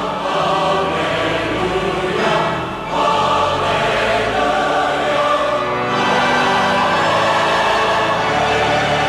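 Choir singing sacred music in held chords, the chords changing about three and six seconds in.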